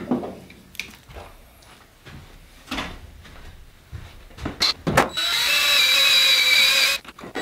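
Cordless drill running steadily for about two seconds near the end, drilling out a battery cable lug to enlarge its hole, after a few clicks and knocks of tools being handled.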